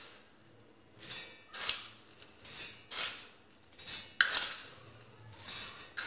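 Granulated sugar spooned from a plastic bowl into a steel mixer-grinder jar over broken Oreo biscuits: a run of short pours and spoon scrapes, roughly one every half second to a second.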